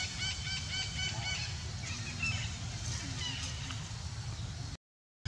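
Macaques calling from the treetops: a quick run of about ten short, high, honking calls in the first second and a half, then scattered single calls, over a steady low rumble. The sound cuts off abruptly near the end.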